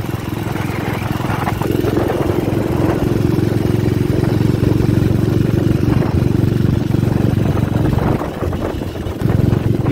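1958 Gilera Sport 150 cc single-cylinder four-stroke engine running steadily under way at cruising speed. About eight seconds in the engine eases off for a second, then picks up again.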